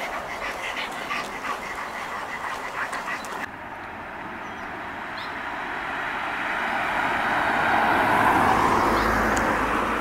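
A few scattered clicks and short chirps, then, after a cut, a broad rushing noise that swells over several seconds and eases near the end, like a vehicle passing on a nearby road.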